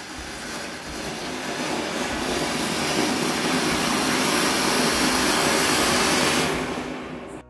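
A ground firework fountain (flowerpot) spraying sparks with a steady rushing hiss that builds over the first few seconds, holds, then dies away near the end.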